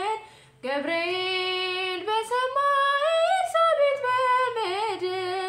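A woman singing an Ethiopian Orthodox hymn (mezmur) unaccompanied. After a short breath she draws out long, sliding held notes, with a wavering vibrato near the end.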